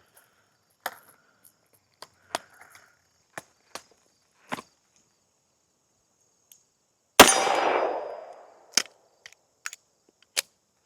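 Scattered sharp metallic clicks of a Smith & Wesson 586 .357 Magnum revolver being handled and loaded, then a single revolver shot about seven seconds in, ringing out for about a second, followed by more clicks.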